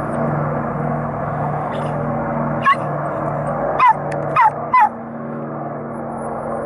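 Steady drone of an amphibious air tanker's engines as it skims the water scooping a load. Four short, high yelping animal calls, each falling in pitch, come between about the third and fifth second and are the loudest sounds.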